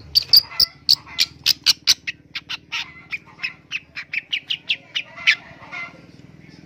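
Long-tailed shrike giving a fast run of short, harsh calls, about five a second, that stops about five seconds in.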